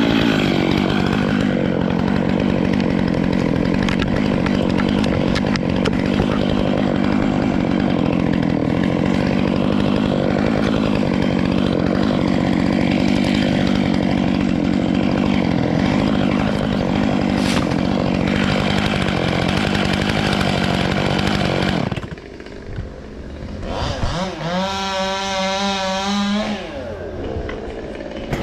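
Petrol chainsaw running steadily for most of the time, then dropping to a quieter, lower note about 22 seconds in, and revving up and back down once near the end.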